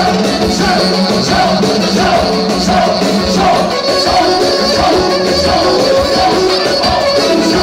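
Music playing at a steady loud level: a wavering melody line over regular percussion hits.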